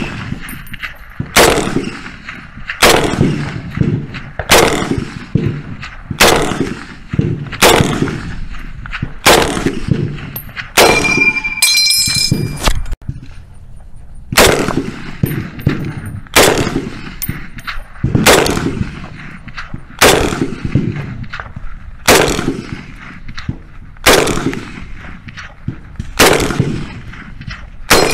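M1 Garand rifle firing shot after shot, about fifteen in all, roughly one every one and a half to two seconds. About halfway through there is a short pause with a high ringing ping, the empty en-bloc clip being ejected after the last round of a clip, before firing resumes.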